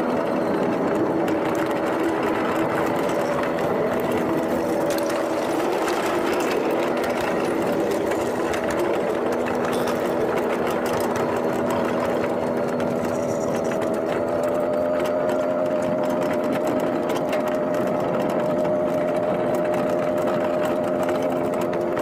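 Homemade miniature ride-on train running steadily along its track: a steady motor drone holding several tones, with light clicking and rattling over it.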